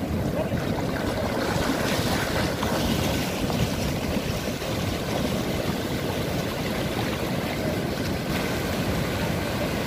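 Surf breaking and washing through the shallows, with wind on the microphone.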